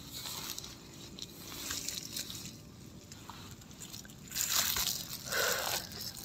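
Nylon sleeping bag rustling and crinkling as a person settles into it in a tent, with louder spells of rustling about four and a half and five and a half seconds in.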